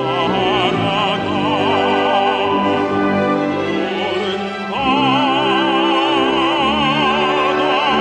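A tenor singing a Korean art song in operatic style, with wide vibrato on long held notes, over orchestral accompaniment. There is a brief break just before five seconds in, then a new held note begins.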